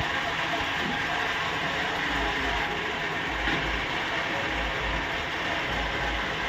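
Metal-turning lathe running, its gearing giving a steady mechanical clatter, with a low hum that pulses on and off in the second half.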